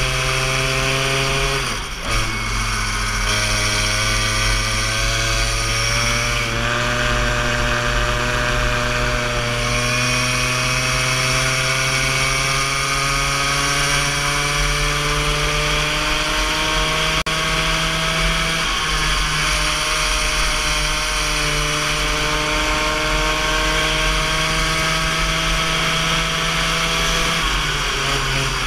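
Go-kart engine running hard right behind the driver, its pitch climbing slowly along each straight and dropping back sharply as it slows for corners: about two seconds in, around six and a half seconds, near nineteen seconds and near the end.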